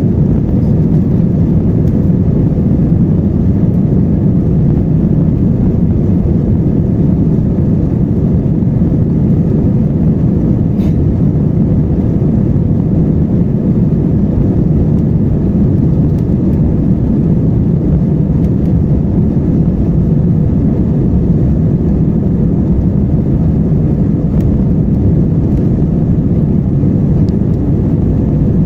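Airbus A320 rolling along the runway, heard inside the cabin from a window seat by the wing: a loud, steady low rumble of the jet engines and the wheels, with a faint steady hum over it.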